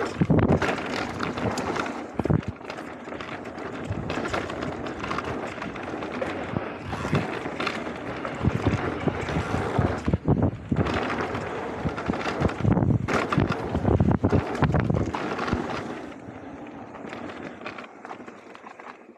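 Wind buffeting the microphone while a mountain bike rattles and knocks over a rough dirt trail, with sharp clatters from the frame and parts on bumps. It drops quieter for the last few seconds.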